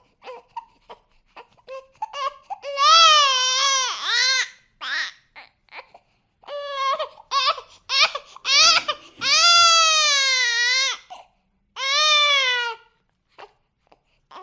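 Baby crying: short fussy whimpers at first, then a string of loud wails whose pitch rises and falls, the longest about two-thirds of the way in, trailing off into small whimpers near the end.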